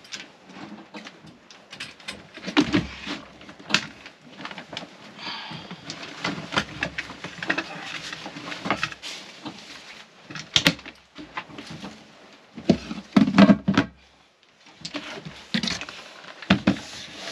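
Irregular wooden knocks, clunks and scrapes as the companionway step and engine-compartment cover of a small sailing yacht are unlatched and lifted away, with a few louder knocks in the second half.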